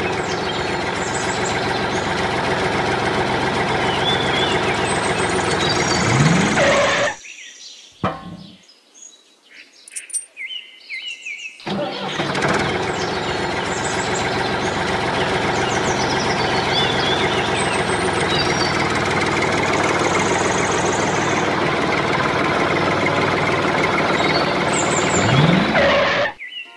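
Tractor engine running steadily, with birds chirping over it. The engine cuts out about seven seconds in and picks up again some four seconds later.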